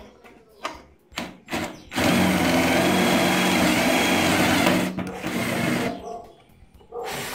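Worx Switchdriver cordless drill turning a 3/8-inch twist bit through a hex-shank chuck adapter and boring into a block of wood. The motor runs with a steady whine under load for about three seconds, eases off and stops about six seconds in, and gives a short second burst near the end.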